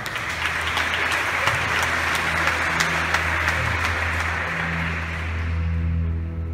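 Audience applauding, thinning out near the end, with a low held note from the band sounding underneath.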